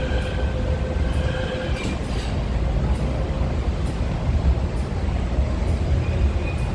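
MTR Kwun Tong Line Q-Train, a Hyundai Rotem electric multiple unit, running through a station without stopping, with a low, steady rumble. A steady high whine stops about two seconds in, and faint clicks of the wheels come every second or so.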